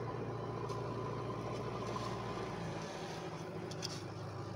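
An engine running steadily at idle, a low even hum, with a few faint clicks about four seconds in.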